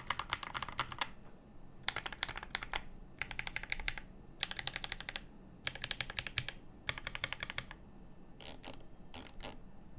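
Satisfaction 75 R2 custom mechanical keyboard, with lubed Moss linear switches, a brass plate and GMK keycaps, being typed on in short fast runs of keystrokes about a second long with brief pauses between them. Near the end there are only a few scattered strokes.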